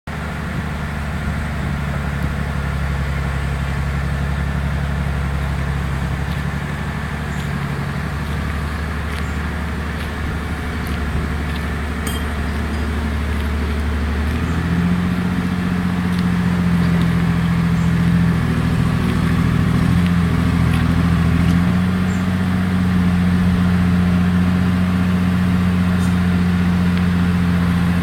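An engine running steadily, its pitch stepping up about halfway through and holding at the higher speed.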